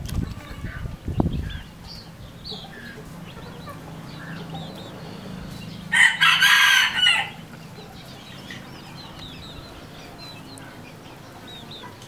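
A red junglefowl rooster crows once, about six seconds in: a short, harsh crow lasting just over a second. Soft clucks and peeps from the foraging flock are heard around it, over a low rumbling noise in the first second and a half.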